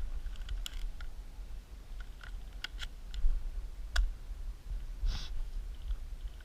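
Scattered sharp clicks, about seven over three seconds, then a short hiss about five seconds in, over a steady low rumble.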